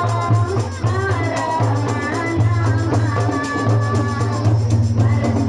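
A woman singing dangdut into a microphone over loud amplified backing music, with a heavy pulsing bass beat and jingling tambourine-like percussion.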